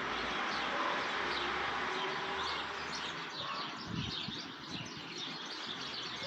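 Birds chirping, many quick high chirps that come thicker from about halfway through, over a steady outdoor hiss.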